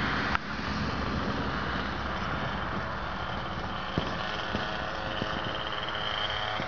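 Tower .75 two-stroke glow engine of an RC airplane buzzing at idle on its landing approach, set a little high. It is heard as a thin whine that grows stronger and rises slightly in pitch over the second half, as the plane comes closer.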